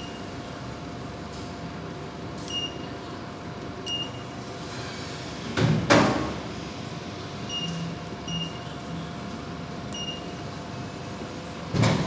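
Vending machine keypad beeping about six times, short high beeps a second or two apart, as a selection is entered. Two louder knocks come about halfway and near the end, over a steady machine hum.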